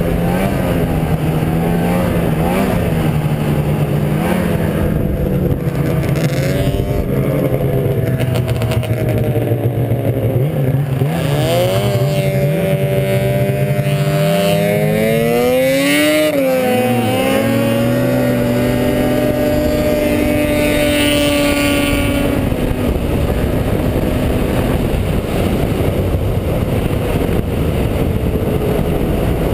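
Arctic Cat snowmobile engine running while riding, its note wavering. The pitch dips sharply and climbs back about a third of the way through and again about halfway, then blends into a steady rush of noise.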